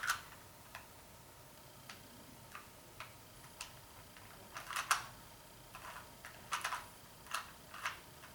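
Plastic Shengshou 2x2 speed cube being turned by hand: irregular clicks and clacks of its layers snapping round, some in quick clusters, with short pauses between.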